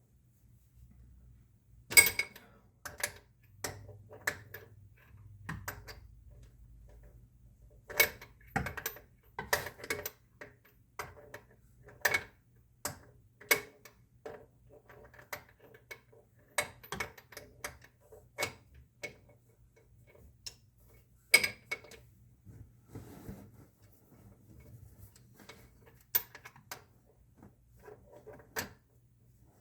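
Scattered sharp clicks and knocks at uneven intervals, the loudest about two seconds in and again near the middle; no engine is running.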